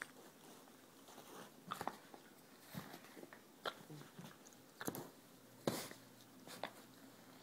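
A small dog snapping and mouthing at a cat in play: scattered short snaps and scuffles, about eight in all, the loudest about two thirds of the way through.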